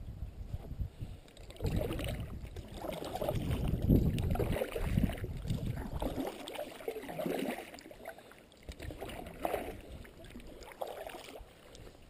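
Paddle strokes from a canoe: a double-bladed paddle dipping and pulling through calm creek water with splashes and drips, over a low wind rumble on the microphone. The splashing is strongest about four seconds in and thins out over the last few seconds.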